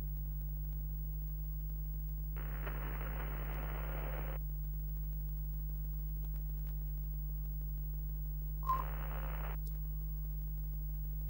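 Steady low electrical hum, like a test card's, broken by two bursts of hissing static: one about two seconds long a couple of seconds in, and a shorter one near the end that starts with a click.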